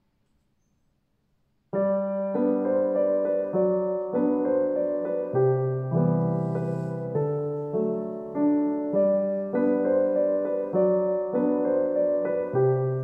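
Near silence, then background piano music starts abruptly about two seconds in and plays on, single notes and chords changing every half second or so.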